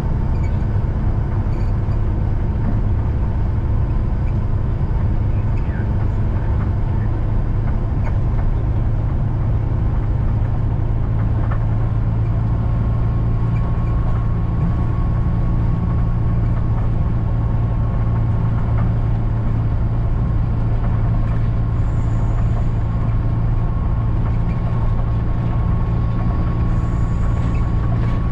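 Steady engine drone and road noise heard from inside a moving bus.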